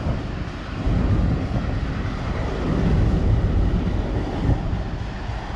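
Passenger express train running along the track: a steady rumble of the coach on the rails, with wind on the microphone that swells and eases every second or two.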